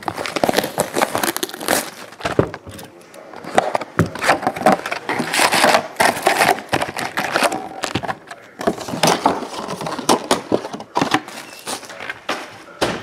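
A cardboard trading-card hobby box being opened and its foil-wrapped card packs pulled out and stacked: steady crinkling and rustling of the pack wrappers, with many small clicks and taps of cardboard and packs.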